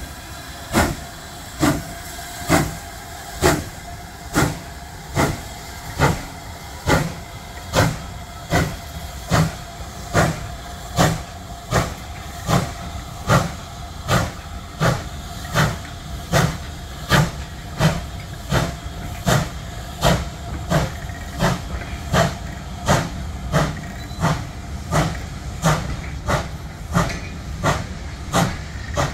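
Steam locomotive pulling away with its train, its exhaust beats chuffing evenly and quickening from a little over one a second to nearly two a second as it gathers speed. The beats fade slightly as it draws away, with steam hissing from the cylinder drain cocks at the start.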